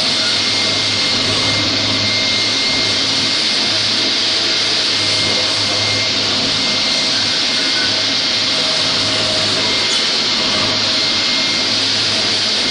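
Linax K-30ENV floor grinder running steadily on a concrete floor, together with its connected dust extractor: a loud, unbroken machine noise of motor hum under a strong high hiss.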